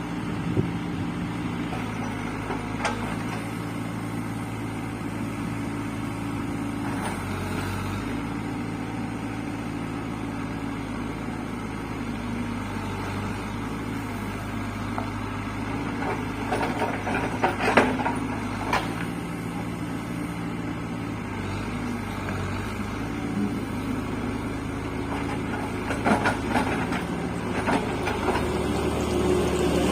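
Caterpillar 424B2 backhoe loader's diesel engine running steadily under working load, its note shifting now and then, with a cluster of sharp metallic knocks a little past the middle and a few more near the end.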